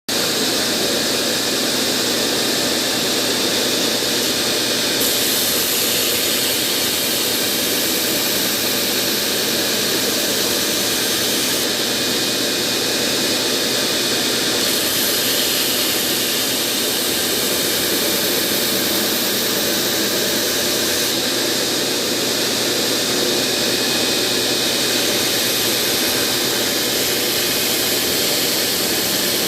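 2x72 belt grinder running with the steel bevels of a knife blade being rough-ground against the belt: a steady grinding hiss whose high, bright edge strengthens and eases a few times as the blade is pressed and moved across the belt.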